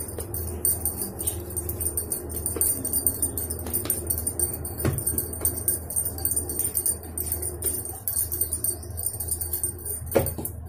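Bangles on the wrists jingling and clinking continuously while hands roll and pat pizza dough into balls on a floured board, with a single soft knock about five seconds in.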